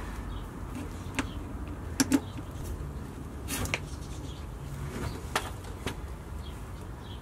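Ratchet wrench and socket working loose a truck's oil drain plug: a handful of sharp metal clicks, spaced irregularly a second or so apart, over a low steady rumble.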